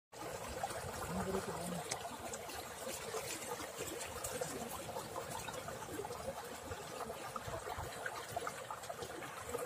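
Faint, steady trickle of water with a few light clicks and rustles.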